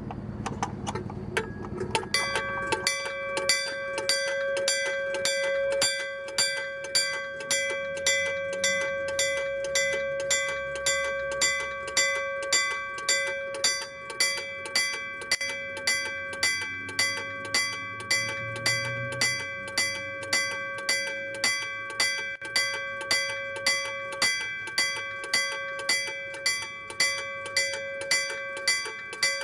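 Iron electric bell of a Meitetsu-style level-crossing signal (denshō-shiki crossing bell) ringing close up, struck at an even pace of about two strokes a second with its metallic tone ringing on between strokes. The ringing starts about two seconds in.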